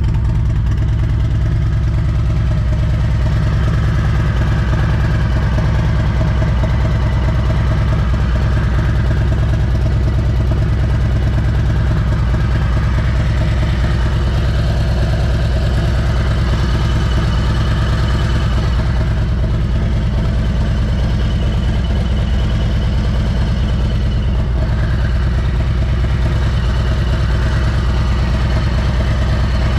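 2020 Harley-Davidson Road Glide's V-twin engine idling steadily on its first run after an oil filter relocation and oil cooler install.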